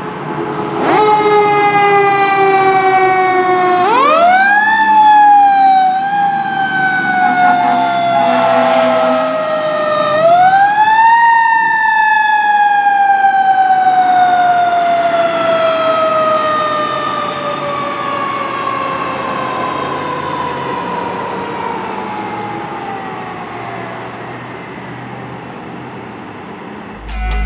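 Pierce Quantum fire engine's siren wailing on an emergency run. The pitch jumps up about a second in, sweeps up again three more times in the first ten seconds, then falls slowly and steadily for over ten seconds as it winds down and fades.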